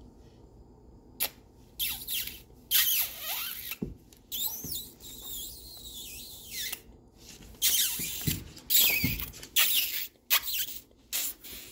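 A dog making a string of short, high squeaky whines mixed with snuffly sniffing right up against the microphone.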